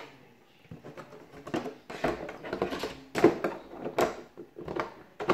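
Plastic body shell of a WLToys K939 RC truck being handled and set down over its chassis: a run of light plastic knocks and clicks, the sharpest about three and four seconds in and just before the end.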